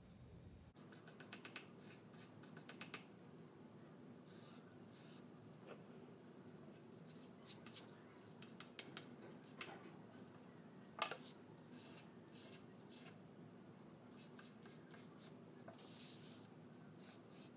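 Faint scratching of a chalk pastel stick on paper, drawn in clusters of quick short strokes as small dashes and lines are sketched in.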